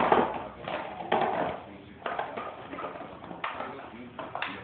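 An Entlebucher mountain dog playing with a plastic bottle: irregular crackling, knocks and scrapes as the bottle is bitten and pushed about.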